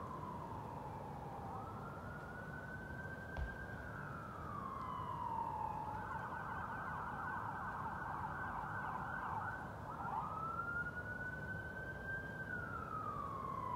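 Emergency vehicle siren wailing, its pitch slowly rising and falling over several seconds, with a stretch of rapid warbling in the middle.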